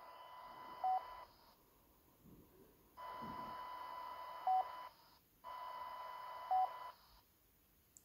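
Handheld radio transceiver's speaker putting out three short stretches of hiss with a steady tone, each with one short beep, with silent gaps between; no voice comes through.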